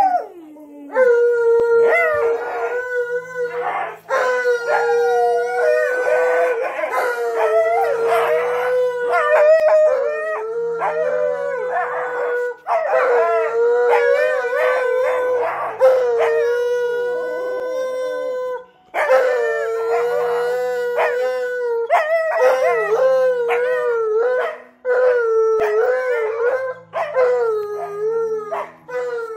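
Siberian husky howling: a string of long howls held near one pitch, broken by short pauses, turning shorter and more wavering toward the end.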